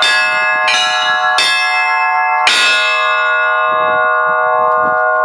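Russian church bells rung in the zvon style: several quick strikes on the bells, then one louder stroke about two and a half seconds in, after which the bells are left ringing on.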